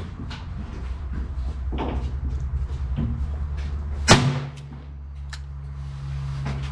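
A single sharp gunshot from a Taurus Model 66 .22 LR rimfire revolver about four seconds in, with fainter clicks around it over a steady low hum.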